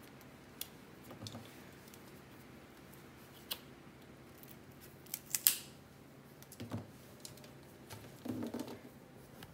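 A kitchen knife cutting and snapping the stalks off raw green tamarind pods: scattered small clicks and snaps, the sharpest crack about five and a half seconds in. Near the end come a soft knock and a brief rustle of the pods in the cane basket.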